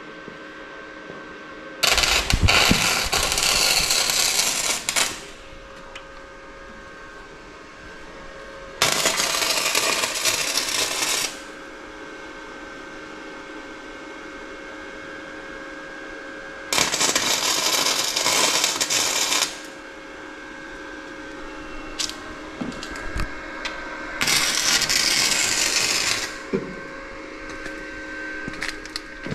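MIG welder stitch-welding a sheet-metal patch into a car firewall: four separate runs of arc crackle, each two to three seconds long, with a steady hum and a few small clicks between them.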